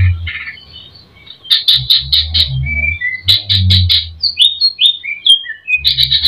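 Cucak ijo (greater green leafbird) singing a song full of mimicked phrases: fast runs of sharp repeated notes, a string of short whistled slurs in the middle, and a dense rapid burst near the end. A low hum sits under the loudest runs.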